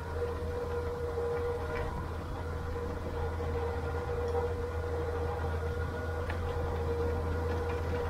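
Case IH MX140 tractor running steadily under load while pulling a disc through the soil: a constant droning hum with a steady whine above it and a few faint ticks.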